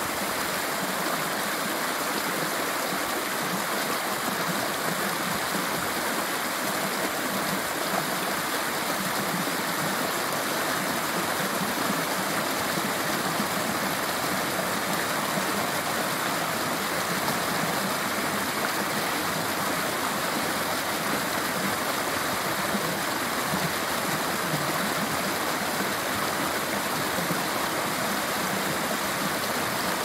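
Waterfall running: a steady, even rush of falling water.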